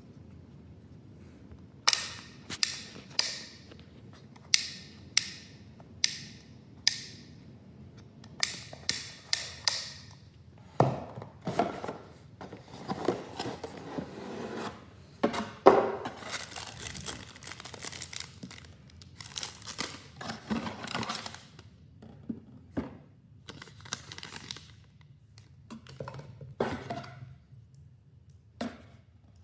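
Hands handling small hard objects. A run of about a dozen sharp clicks and knocks comes first, then a longer stretch of rustling, crinkling and light knocks.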